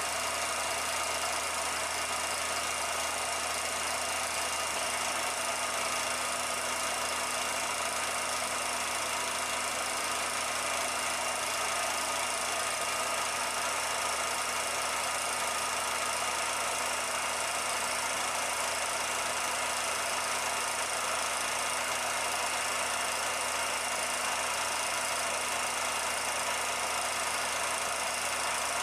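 A steady mechanical running noise with a constant hum, with no change in level or pitch.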